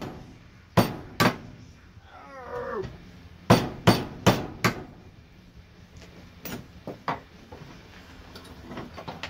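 Hammer striking a steel bolt used as a punch, driving the old wooden handle out of an axe head held in a vise. Two sharp metallic blows, then a quick run of four, then lighter taps near the end.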